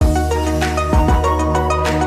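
Background music with a drum beat over sustained electronic chords.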